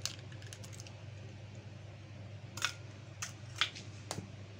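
Egg being cracked into a steel mixing bowl: a few short sharp clicks and taps of shell on metal, most of them in the second half, over a steady low hum.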